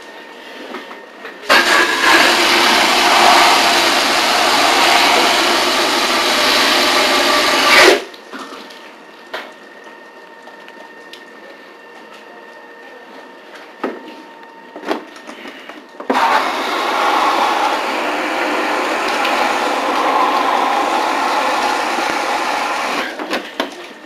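A firefighter's hose nozzle spraying water in two bursts of about six seconds each, opened and shut off abruptly. A few sharp knocks come in the pause between them.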